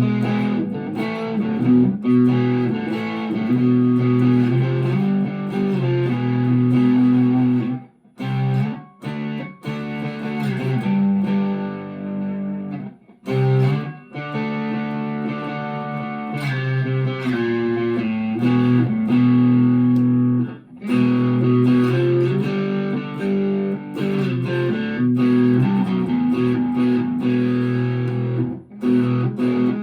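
Chapman ML3 Thinline Pro Classic electric guitar played through a Harley Benton Tube15 valve amp set to light overdrive: ringing chords and riffs, with a few short breaks between phrases.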